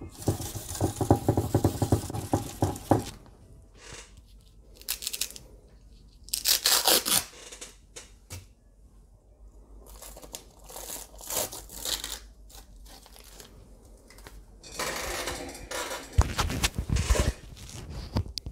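Masking tape being peeled off a wrinkle-painted valve cover in several ripping pulls, the longest near the start and two more later.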